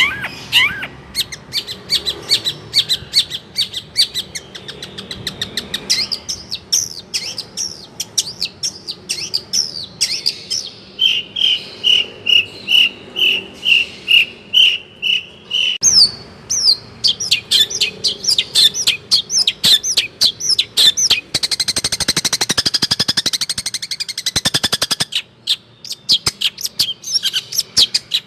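Long-tailed shrike (cendet) in full song: a varied, continuous run of quick chirps and whistles, with a steady series of about nine evenly repeated notes midway and a fast, dense trill later on.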